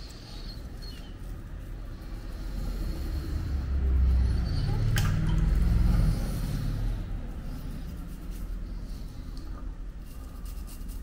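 Safety razor scraping over beard stubble around the lips and chin, under a low rumble that swells and fades through the middle, with a sharp click about five seconds in.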